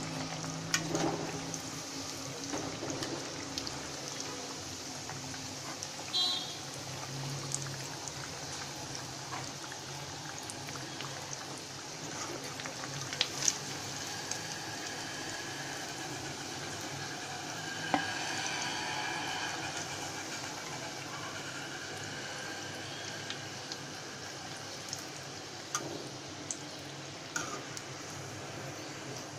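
Hot oil sizzling and bubbling steadily in a steel kadai as masala-coated arbi (taro root) pieces deep-fry, with a few sharp clinks of a steel slotted spoon against the pan.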